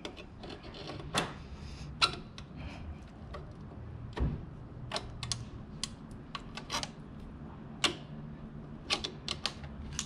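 Pliers working the pivot pin at a motorcycle's footpeg mount: sharp, irregular metal clicks and ticks, with a duller knock about four seconds in.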